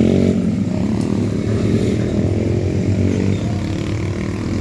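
A motor vehicle's engine running steadily at close range, as from passing road traffic.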